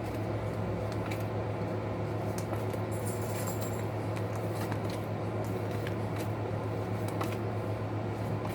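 Tarot cards being shuffled and handled: faint scattered clicks and a short rustle about three seconds in, over a steady low hum.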